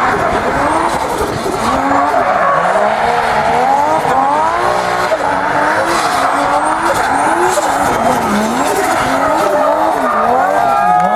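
BMW E30 drift car's engine revving up and down over and over as the throttle is worked through a drift, with the rear tyres screeching and spinning on the tarmac.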